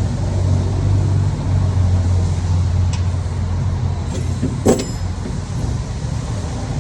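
Steady low hum of a running vehicle engine, with one sharp metallic clink about two-thirds of the way through.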